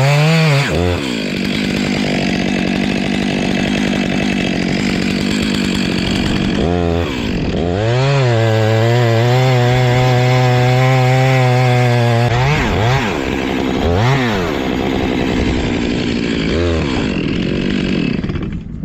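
Two-stroke chainsaw running. It revs up at the start and settles to a steadier note for several seconds. About seven seconds in it climbs to high revs and holds there for about four seconds, then is blipped up and down a few more times.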